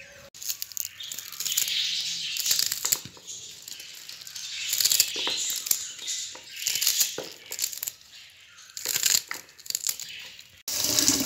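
Fresh mustard-green stems and leaves being peeled and cut by hand with a small knife: a run of irregular crisp snaps and crunches with leaves rustling. Near the end a tap starts running into a sink.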